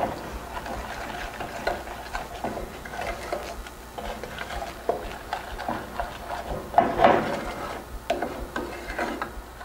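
Wooden spoon stirring playdough mixture in a stainless steel saucepan, scraping and knocking irregularly against the bottom and sides of the pot, with a louder run of scrapes about seven seconds in.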